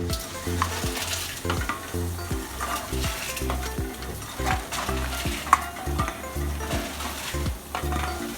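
Background music with a steady, repeating bass line and short pitched notes, with scattered sharp clicks over a hissy texture.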